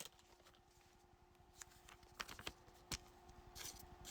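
Faint, scattered clicks and light rustles of trading cards being handled and flipped through, over quiet room tone.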